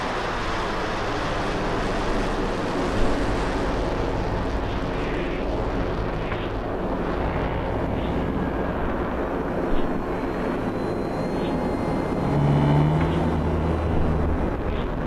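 Steady jet roar from a formation of three military fighter jets flying overhead, with a couple of brief knocks.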